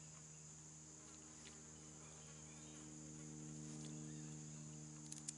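Faint insect sounds: a steady high chirring like crickets together with a low, even buzz like a flying insect, the buzz swelling a little in the middle. A few small clicks near the end.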